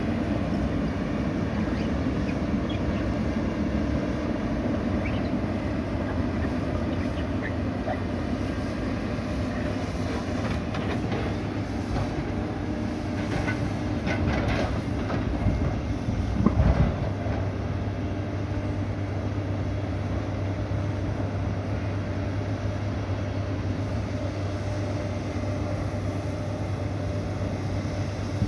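Diesel engines of two tracked excavators running steadily under load as they dig and push earth, with scattered knocks and clanks from buckets and tracks and one louder thump about sixteen seconds in.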